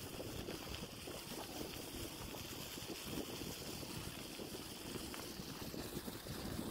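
Wind blowing across the microphone: a steady low rush with irregular fluttering.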